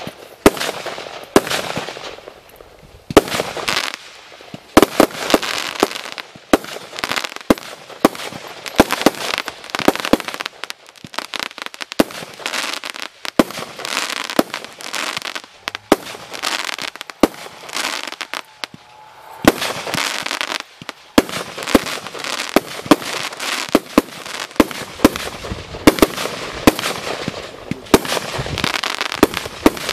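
Multi-calibre firework cake firing: a rapid, irregular series of sharp shots and bursts with hissing between them. There is a short lull partway through, then the shots resume.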